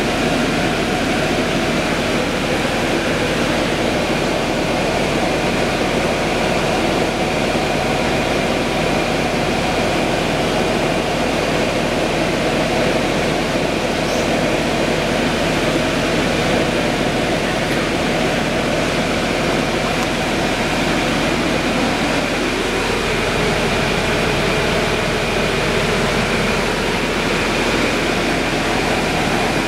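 Steady interior drone of a 2011 Orion VII hybrid transit bus standing at a stop, its engine and fans running, with a faint high steady whine over the rumble. The low part of the sound shifts slightly about two-thirds of the way through.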